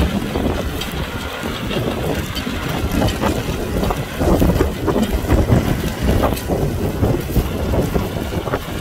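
Kubota tractor's diesel engine running steadily under load while plowing, with wind buffeting the microphone.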